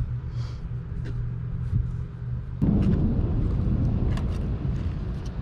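Steady low engine-like hum, which turns suddenly into a louder, rougher rumble about two and a half seconds in.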